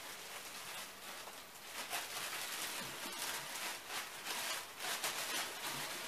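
Clear plastic bag rustling and crinkling in irregular bursts as it is handled and pulled off an item.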